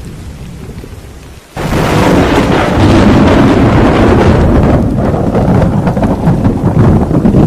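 Thunderstorm: a low rumble of thunder, then about a second and a half in a sudden loud crack of thunder that rolls on over heavy rain.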